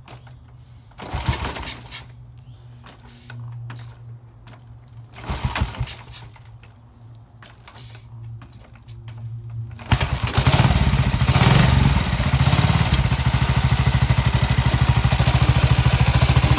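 1936 Triumph L2/1 250 cc overhead-valve single-cylinder motorcycle engine being kick-started: two brief spins that don't catch, then it fires about ten seconds in and keeps running with a loud, steady, even beat.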